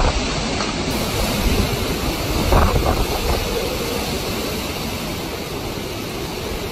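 Hurricane-force wind and driving rain, a loud steady rush that buffets the microphone with a rumbling low end, swelling a little about two and a half seconds in.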